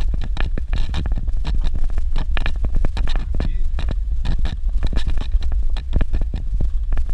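Vehicle driving over a rough dirt road: steady low rumble with frequent irregular knocks and rattles.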